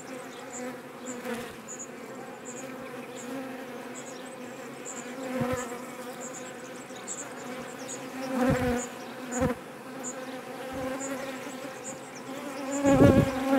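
Honeybees buzzing steadily in a crowd around an opened hive. A few short low thumps come from the hive being handled, the loudest near the end.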